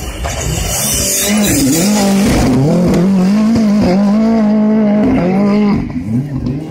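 Rally car engine revving hard, its pitch rising and dipping several times with throttle and gear changes as the car slides sideways through a loose-surface corner, then falling away just before the end.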